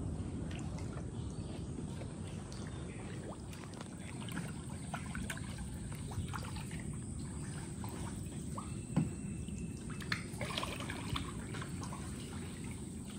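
Kayak paddles dipping in calm water, with quiet trickling and dripping as water runs off the blades, and a couple of small knocks about nine and ten seconds in.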